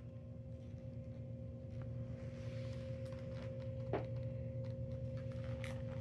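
A steady hum with a clear held tone throughout, with a few faint clicks and rustles as the cardboard model is turned in the hand, one slightly louder about four seconds in.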